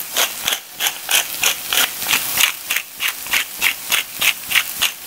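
Wooden pepper mill grinding black peppercorns: a quick, even run of crunching grinds, about three or four a second.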